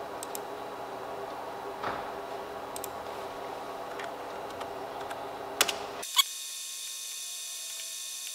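A few scattered computer keyboard and mouse clicks, the two loudest about six seconds in, over a steady low room hum. Just after them the hum cuts off abruptly, leaving a quieter background with a faint high-pitched tone.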